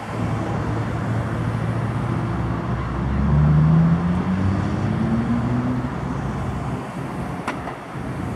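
NJ Transit PL42AC diesel locomotive moving away under power, its engine running with a low steady hum; from about three seconds in its pitch rises as it throttles up, loudest around then, then eases off as the train recedes.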